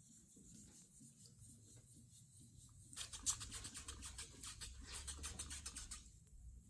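Wet-sanding paper rubbing by hand over the painted hood of a 1972 Buick Centurion, colour sanding the clear coat with 1200 grit: soft rubbing at first, then a fast, even run of short scratchy back-and-forth strokes from about three seconds in that stops shortly before the end.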